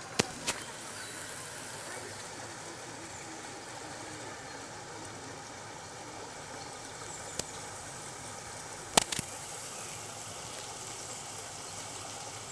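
Steady outdoor background noise with a few sharp clicks: two in the first half second, then two close together about nine seconds in.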